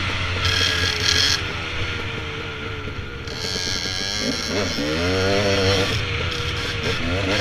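Dirt bike engine running under way on a trail, with wind rushing past the helmet-mounted microphone. The engine note rises and falls several times in the middle and again near the end as the rider works the throttle and gears.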